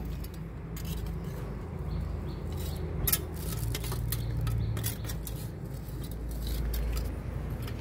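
Litter tongs clinking and scraping against a concrete drain channel as leaves and debris are picked out, in irregular short clicks over a low steady rumble.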